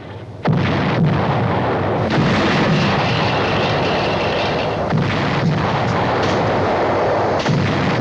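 Artillery barrage, shells exploding in quick succession. It starts suddenly about half a second in, then runs as a loud continuous din of blasts, with sharper explosions standing out now and then.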